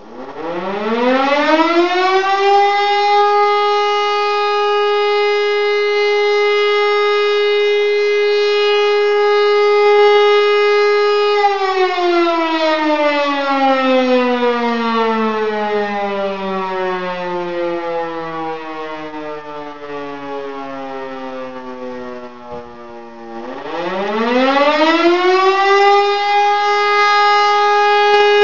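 E57 electromechanical motor siren sounding the fire-alarm signal. It spins up to a steady single tone, holds it for about ten seconds, then winds down in a long falling glide, and starts up again near the end.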